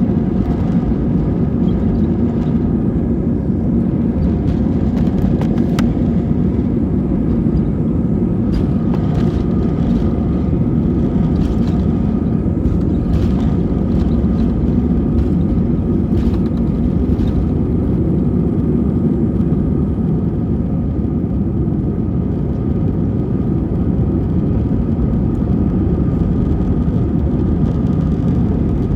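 Airliner engines heard from inside the cabin: a steady heavy rumble with a constant engine whine over it. Light rattles and clicks come through between about 8 and 18 seconds in.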